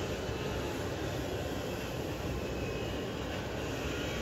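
Steady low rumbling background noise that stays even throughout, with no distinct events.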